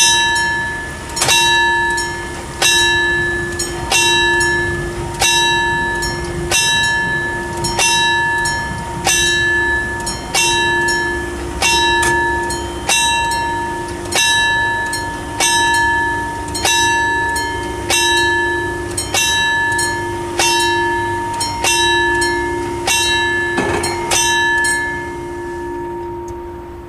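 Level-crossing bell (an FS88 + TD 96/2 ringer) striking slowly and evenly, about once every 1.3 seconds. Each stroke rings out and fades before the next. It rings while the barriers rise to reopen the crossing, and the strokes stop shortly before the end.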